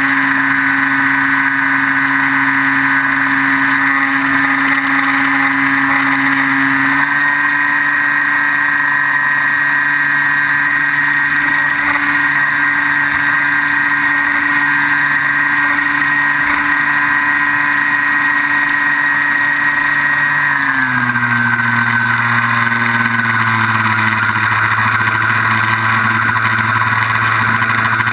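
Brushless electric motor and propeller of a Skywalker 1680 FPV plane, recorded in flight by the onboard camera: a steady whining hum. The pitch steps up slightly about a quarter of the way in, then drops to a lower motor speed about three-quarters of the way through.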